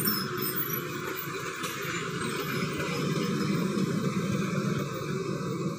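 Diesel engine of a large intercity bus running under load as it passes close by and climbs a steep grade, with tyre and traffic noise mixed in.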